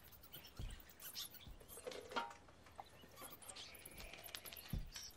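Faint, quiet film soundtrack: scattered small clicks and scratchy rustles with a few soft low thumps.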